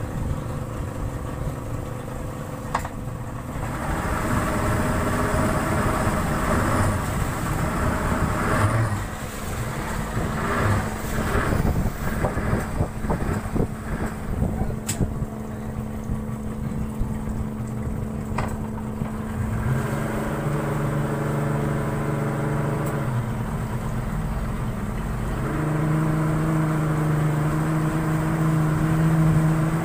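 Motorboat engine running under way, with a steady rush of wind and water; the engine note shifts a few times.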